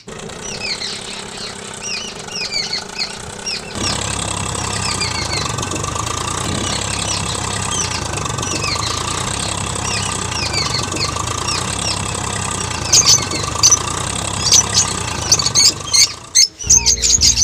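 Tractor engine running steadily, coming in suddenly about four seconds in, with birds chirping throughout.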